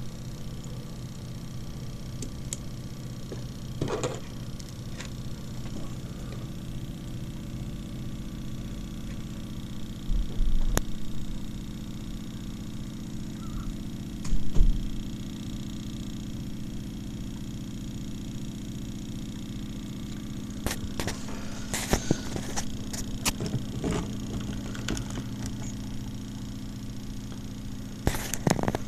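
Rewound CPU fan running as a Bedini pulse motor, a steady hum and whir with a fine rapid pulsing; the circuit is oscillating and charging a battery. Scattered clicks and a few low knocks come from handling the wires and meter.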